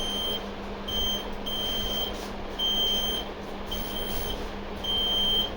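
RFID security gate alarm beeping: a high electronic buzzer tone sounding five times, each beep about half a second long and roughly a second apart. It signals that an unauthorized tagged book has been carried past the reader's antenna.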